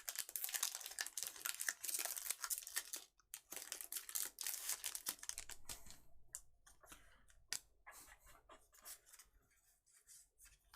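Foil Pokémon TCG booster pack wrapper being torn open and crinkled, dense crackling for the first three seconds, then scattered small clicks and faint rustles as the cards are handled.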